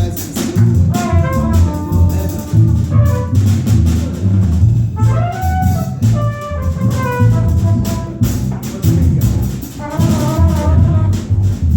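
Small jazz group playing live: a moving lead melody over bass notes and drums with cymbal strokes.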